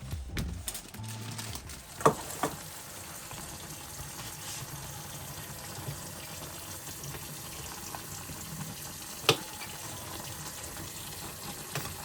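Cooking water being poured off a pot of boiled instant noodles, a steady splashing stream, with a few sharp knocks of the pot, twice about 2 seconds in and once about 9 seconds in.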